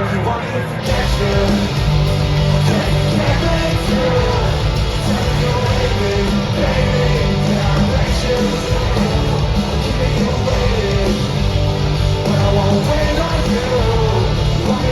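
Live pop-punk band playing loudly, with electric guitars, bass and drums and singing over them.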